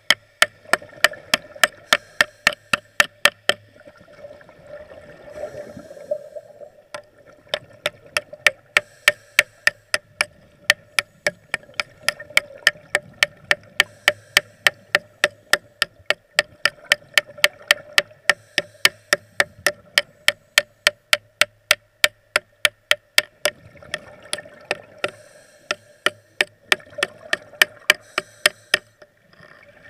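Underwater welding heard through the water: a fast, evenly spaced clicking, about three or four clicks a second, over a steady hum and a watery hiss.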